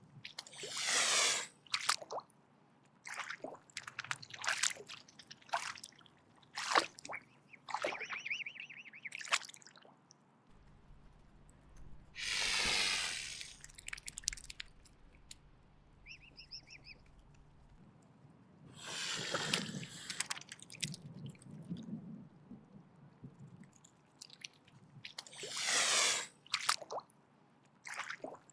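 Mute swan hissing in defence: four long, raspy hisses, each a second or two, with short sharp clicks between them.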